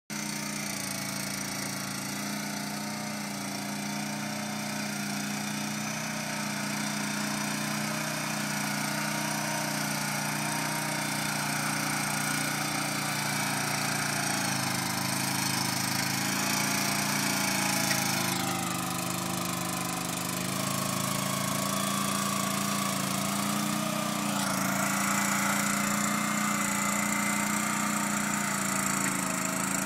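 Small engine of a shed mule running steadily while it pushes a shed across grass. Its note sags a little and recovers a couple of times past the middle.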